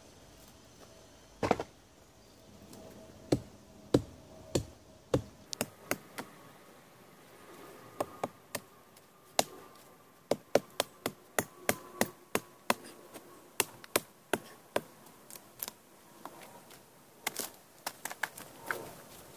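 Repeated sharp chopping blows of a hand tool into a tree stump: about thirty uneven strikes, at times two a second, with a faint steady buzz underneath.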